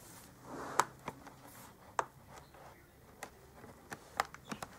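Snap clips along the sides of an MSI GS40 laptop's bottom cover clicking into place as the cover is pressed down: about seven sharp clicks, several close together near the end, with a short rub of the cover about half a second in.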